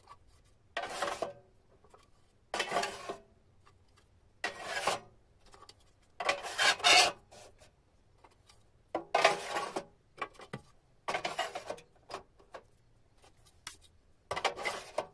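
Clear plastic drawers being slid one after another into the slots of a painted metal drawer cabinet. Each slide is a short scrape, about seven in all, a second or two apart.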